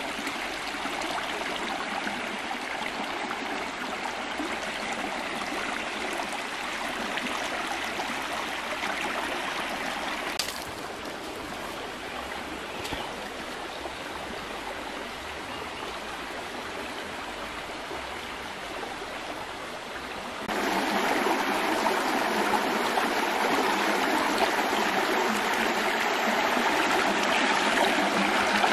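Shallow rocky stream running over stones, a steady rush of water that drops a little about ten seconds in and comes back louder about twenty seconds in.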